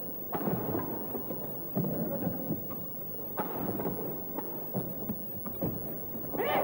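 A badminton doubles rally: a shuttlecock struck hard by rackets about once a second, sharp hits over steady arena crowd noise. The crowd noise swells loudly near the end.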